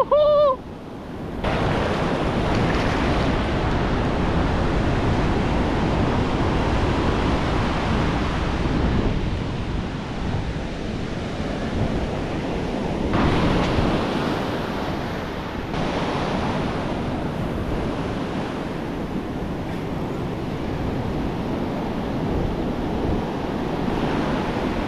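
Ocean surf washing up a sandy beach in a steady rush, with wind buffeting the microphone; a louder wash of foam comes through about halfway.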